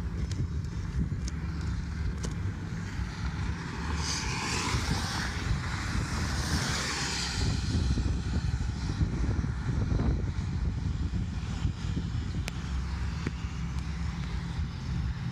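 Storm wind buffeting a phone's microphone with a steady low rumble. A louder rushing hiss swells and fades about four to eight seconds in.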